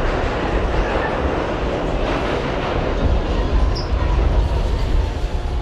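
R68 subway car running along the track between stations, with the steady noise of wheels on rail. Faint steady tones come in during the second half.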